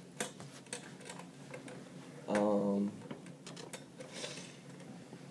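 Small light clicks and taps of hardware and packaging being handled. A little over two seconds in, a short steady hum of about half a second, likely a closed-mouth vocal hum, is the loudest sound.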